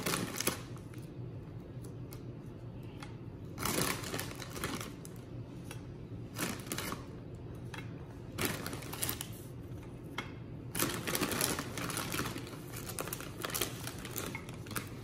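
Light clicks and taps of vanilla wafer cookies being set down one by one in a glass baking dish, in scattered clusters that grow busier near the end, over a faint steady hum.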